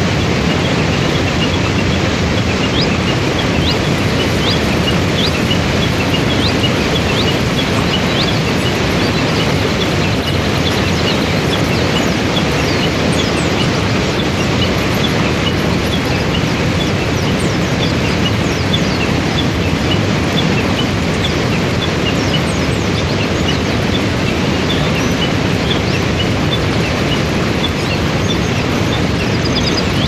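Waterfall and river rapids rushing, a loud, steady roar of water. Many small bird chirps sound high over the water.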